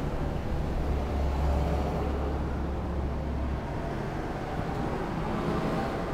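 Steady low rumble with a deep hum underneath that stops about three and a half seconds in.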